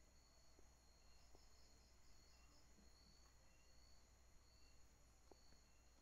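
Near silence with faint, steady night insects chirring high-pitched, including a brief pulsing chirp a couple of seconds in, and a few soft clicks.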